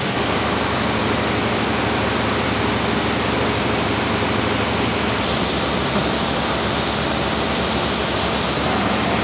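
Qunfeng automatic concrete paver-block making machine and its conveyor line running, a loud, steady, hiss-like mechanical noise; the low rumble changes character about five seconds in.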